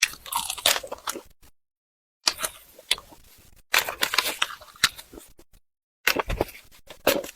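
Eating grilled pork intestines: crisp, clicky chewing and mouth sounds in four bursts, each a second or two long, broken by gaps of dead silence.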